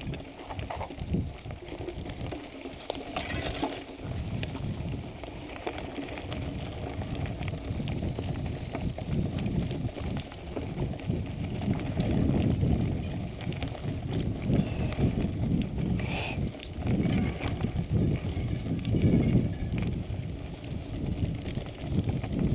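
Mountain bike riding over a rough dirt and grass trail: tyres rumbling on the uneven ground and the bike rattling and knocking over the bumps.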